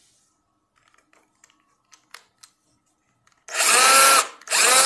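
Bosch 14.4 V cordless drill, just fitted with a new battery pack, run twice in short bursts near the end after a few faint handling clicks: each time the motor whines up to speed, holds steady and winds down. It is the test run showing the drill works on the replacement battery.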